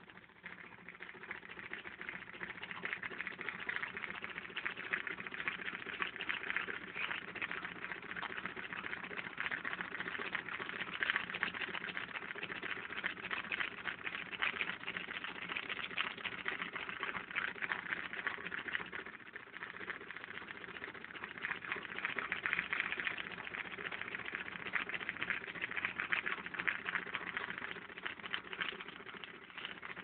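Homemade reed-switched magnet motor with a coil and capacitor running: a dense, rapid rattle of clicks over a steady low hum. It builds up over the first couple of seconds and dies down near the end.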